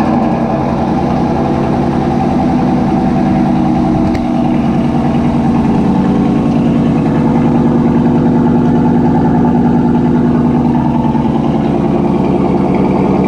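Chevrolet Silverado 1500's 6.2-litre V8 idling steadily just after start-up, exhaled through a newly installed Corsa Sport cat-back stainless exhaust.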